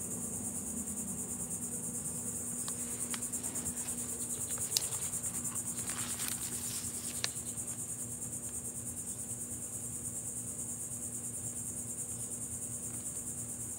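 Steady high-pitched insect chorus, an even rapid pulsing trill typical of crickets, with a few faint clicks around the middle.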